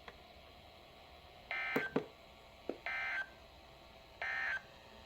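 Three short, identical bursts of warbling data tones from a NOAA Weather Radio broadcast, about a second and a half apart: the EAS/SAME end-of-message code sent three times to close the alert. A couple of sharp clicks fall between the first two bursts.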